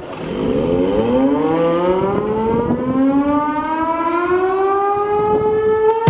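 Ice hockey arena goal siren winding up, its pitch rising steadily and levelling off near the end as it reaches full speed, sounding for a goal.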